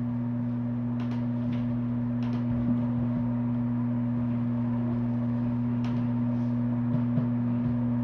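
Steady low electrical hum at two fixed pitches, with a few faint clicks of laptop keys being tapped.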